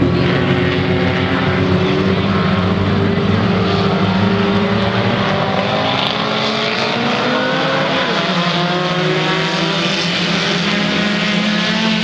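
Mini stock race cars' engines running together as a pack, several engine notes rising and falling as the cars accelerate and lift around the track. About eight seconds in, one engine note falls sharply as a car goes by.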